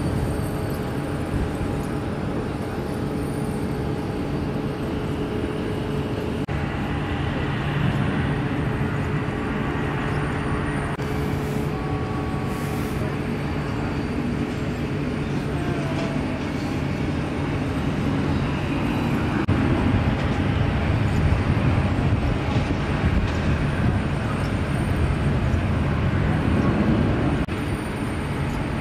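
Jet airliner engines at an airport: a steady low rumble with a constant hum, growing louder in the second half as jets take off and taxi.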